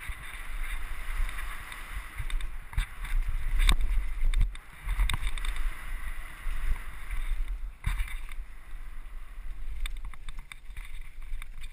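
Wind buffeting the microphone of a mountain bike's action camera on a fast descent, with the steady hiss of tyres rolling over a gravel trail. Sharp knocks from bumps in the trail come now and then, the loudest about four and eight seconds in.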